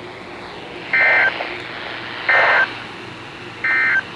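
NOAA Weather Radio end-of-message signal: three short buzzy digital data bursts about a second apart over steady radio hiss. This is the EAS/SAME code that closes an alert broadcast.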